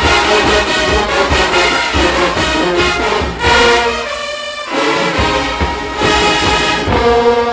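Brass-heavy marching band playing over drum hits, swelling into long held brass chords about midway and again near the end.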